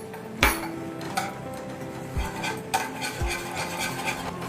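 A spoon stirring and scraping a thick flour-and-milk porridge around a cooking pan, with a few light knocks of the spoon against the pan.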